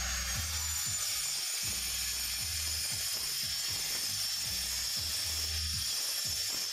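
Electric angle grinder running its disc against black natural stone, shaping a stone mortar: a steady high whine over a gritty hiss.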